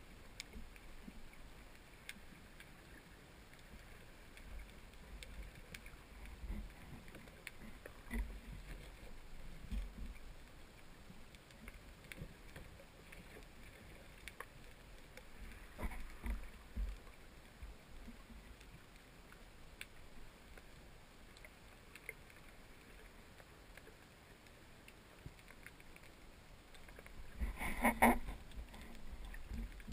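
Faint, muffled water noise heard through the camera's waterproof housing while spearfishing: a low rumble with scattered small clicks. There is one louder brief pitched burst about two seconds before the end.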